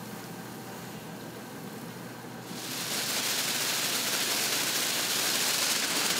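A steady mechanical hum from a popcorn mixing kettle. About two and a half seconds in it gives way to a louder, steady rustling rattle of popcorn being shaken in paper bags.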